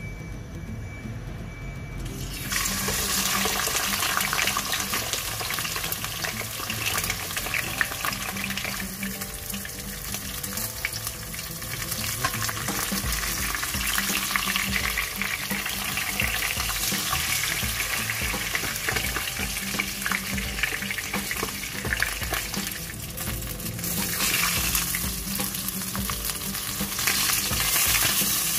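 Whole chicken frying in hot cooking oil in a nonstick wok, a dense crackling sizzle. It starts suddenly about two and a half seconds in and swells and eases a little along the way.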